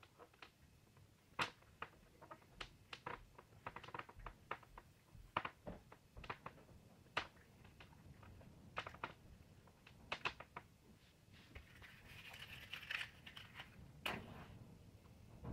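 Faint, scattered clicks and taps of fingers handling a metal eyeglass frame and working a black tube onto the end of its temple arm. Near the end there is a short scratchy rustle and a sharper click as a matchbox is handled and a match is struck.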